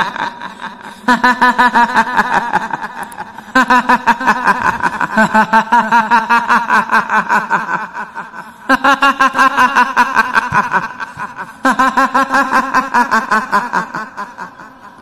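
Kuntilanak ghost laugh: a woman's shrill, drawn-out 'hihihi' cackle in several long runs of quick, evenly spaced laughing pulses, the last run fading out near the end.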